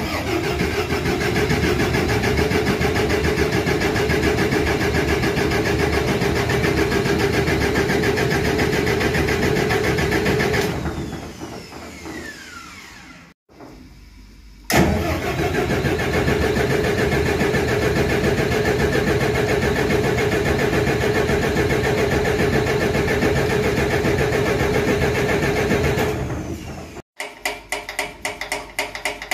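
Large marine diesel main engine starting with a sudden burst and running loud and steady for about ten seconds, then winding down in pitch as it stops. It is started again a few seconds later, runs steadily for about eleven seconds and winds down again. Near the end there is a quick, even series of knocks.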